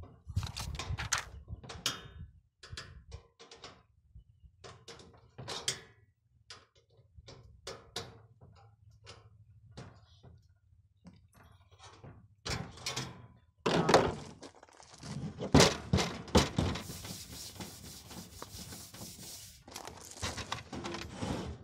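Small clicks and metallic knocks as screws are driven by hand into a galvanized sheet-metal nesting box frame, then louder clattering thunks and scraping from about 13 seconds in as the sheet-metal roof panel is handled and fitted.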